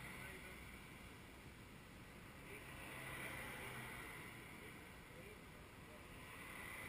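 Faint street ambience: a low, steady hiss that swells and fades twice, with no distinct event.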